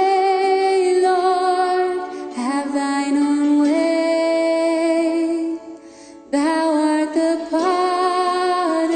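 Slow worship song between sung lines: voices hold long, slightly wavering notes of a couple of seconds each, with a brief drop in level about six seconds in.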